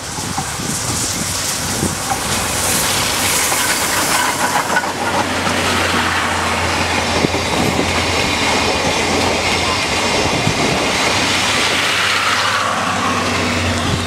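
JNR Class D51 steam locomotive D51 498 passing at close range with a rush of steam, followed by its train of passenger coaches rolling past with a steady rumble and rapid clickety-clack of wheels over the rail joints.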